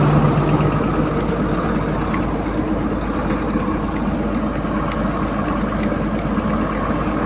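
Komatsu PC220 excavator's diesel engine idling steadily.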